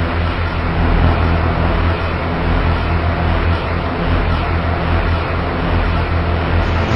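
Dark ambient drone music: a steady, deep low drone under a dense, even wash of noise, with no beat or distinct events.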